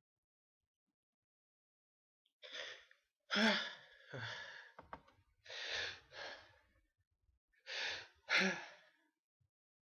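Sneezing fit: gasping in-breaths and two sharp, loud sneezes about five seconds apart, the first a little past a third of the way in and the second near the end.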